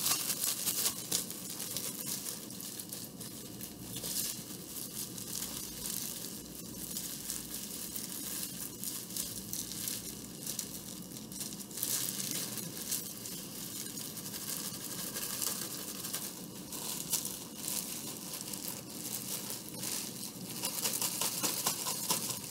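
Clear plastic bag crinkling and crackling steadily as a soap mixture is squeezed and mixed inside it by hand.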